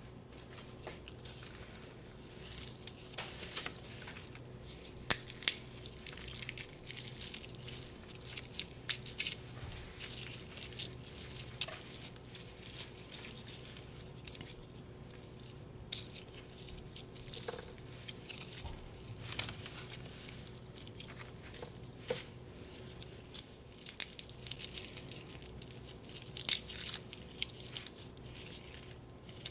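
Soft rustling and crinkling of carrot peelings and newspaper being handled, with many small irregular clicks and crackles, over a faint steady hum.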